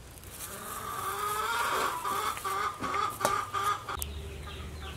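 Chickens clucking for about four seconds, with a couple of sharp knocks among them, then dying away.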